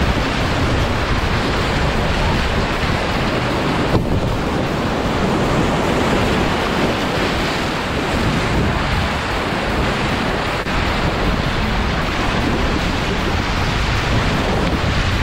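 Whitewater rapids rushing loudly and steadily around a canoe, heard close from the boat, with wind buffeting the microphone. A single brief knock about four seconds in.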